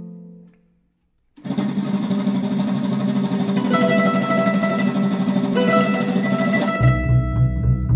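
Venezuelan string ensemble playing a pasodoble. A held chord dies away into a brief silence, then strummed cuatro picks up. Plucked mandolin melody joins about halfway, and double bass notes come in near the end.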